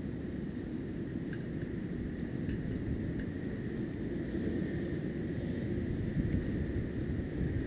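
Steady low rumble of wind buffeting the microphone, with a faint steady high whine.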